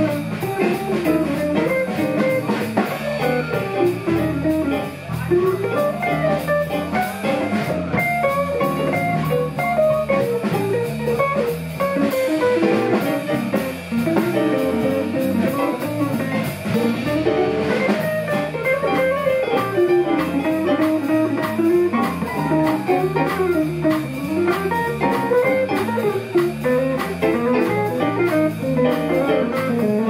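Small jazz group playing a bebop blues: a Gibson ES-350 hollow-body electric guitar plays running single-note lines over walking electric bass, keyboard and a drum kit keeping steady time on the cymbals.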